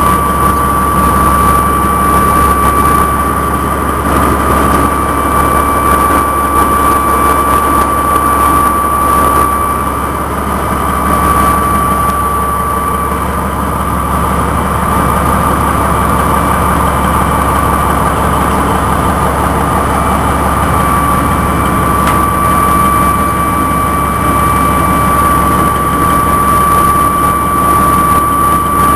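Morbark 1200 tub grinder running: a loud, steady engine drone with a high whine over it that fades briefly about ten and twenty seconds in.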